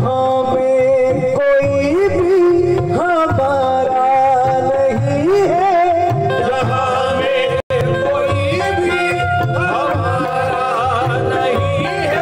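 Qawwali music: a harmonium and a saxophone hold the melody with a wavering, gliding line of solo singing, over a steady hand-drum rhythm. The sound cuts out for a split second just past halfway.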